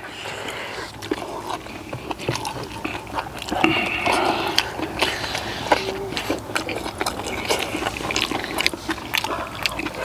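Eating sounds: chewing and slurping spicy stir-fried webfoot octopus, with many short clicks of metal spoons against steel bowls.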